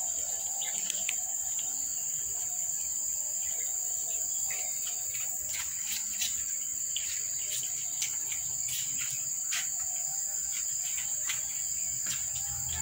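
A steady, high-pitched insect drone, such as crickets or cicadas, holding one unbroken pitch, with scattered short clicks over it.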